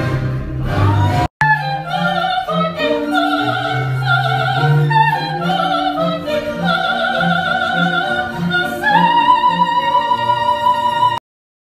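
Operatic singing in a high voice with wide vibrato over orchestral accompaniment, rising to a high held note near the end. A brief break about a second in, and the music cuts off abruptly just before the end.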